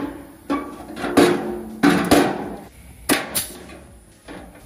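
Pneumatic air punch clacking as it punches holes through the flange of a sheet-metal apron panel: about six sharp strokes, some in quick pairs.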